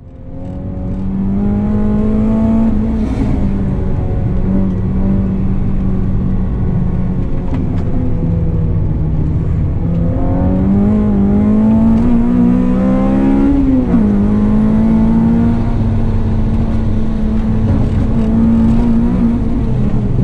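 Honda Civic FN2 Type-R's 2.0-litre i-VTEC four-cylinder, running a decat 4-2-1 header and custom muffler, heard from inside the cabin under hard acceleration. The sound fades in at the start, and the pitch climbs twice as the revs rise, with a sudden drop about fourteen seconds in.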